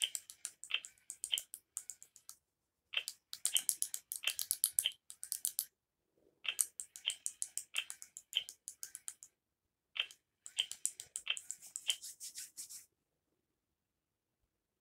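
Baby Alive Snackin' Sara doll chewing the food put in her mouth: four runs of quick, crackly crunching clicks, which stop about two seconds before the end.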